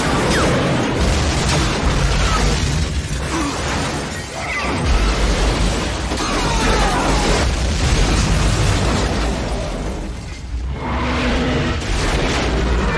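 Movie battle sound effects: missile explosions and booms with crashing, shattering debris, mixed over orchestral film score.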